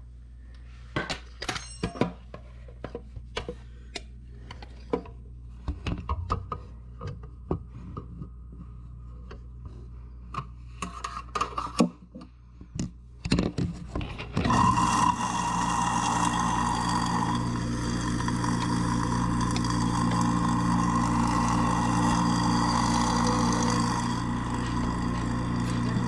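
Scattered knocks and clatter, then about 14 seconds in a newly installed Badger 100 garbage disposal switches on and runs steadily with a hum and a hiss: its first test run after installation.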